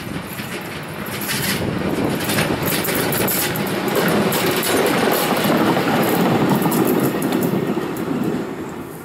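SM42 diesel-electric shunting locomotive passing close with container wagons, its engine running and the wheels running over the rails. The sound builds to its loudest as the locomotive goes by and fades near the end.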